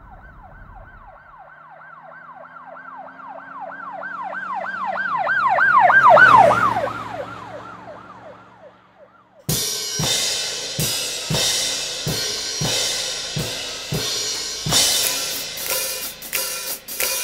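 An emergency vehicle siren in a fast wail, about four sweeps a second, passes by: it grows louder to a peak about six seconds in, then drops in pitch and fades. About nine and a half seconds in, music with drum kit, snare and cymbal hits cuts in abruptly.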